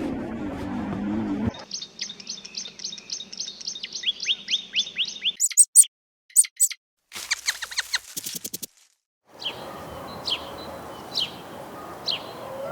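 Birds calling and singing in a run of separate short sequences: a fast series of repeated chirps, then a few high sharp calls, then rapid trills, then a slower series of calls about once a second. The first second and a half holds the end of a low, rumbling animal growl.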